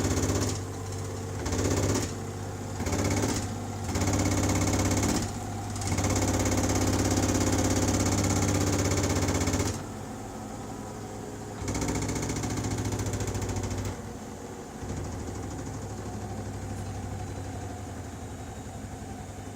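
Bosch machine running with a fast rhythmic knocking rattle. The rattle drops away and comes back several times, as the machine's right corner is pressed and released, then quietens for the last few seconds.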